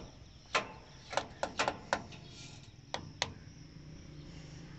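Sharp, irregular metallic clicks and taps, about eight in the first three and a half seconds, from hands working on the fuel-injection parts of a diesel engine that will not start. A faint steady low hum carries on underneath.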